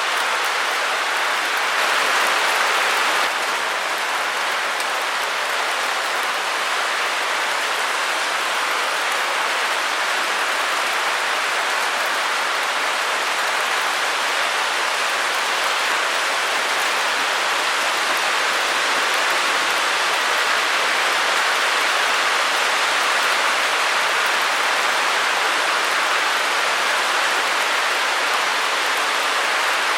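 Steady white-noise hiss: a dense, even rush with most of its weight in the middle and upper range and little bass, a touch louder for a second or so about two seconds in.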